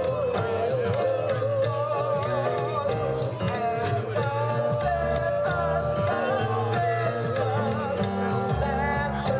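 Music with jingle bells shaken in a steady rhythm over a wavering, vibrato melody line and a steady bass.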